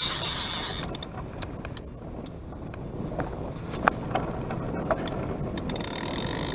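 Steady rush of wind and river water on a camera mounted in a wooden boat. A few sharp knocks of fishing gear against the boat sound about four and five seconds in, and a thin high hiss rises right at the start and again near the end.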